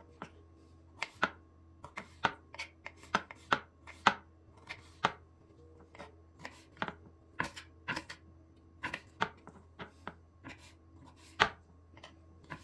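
Kitchen knife chopping peeled fresh ginger on a cutting board: irregular sharp knocks, roughly two a second, some in quick pairs.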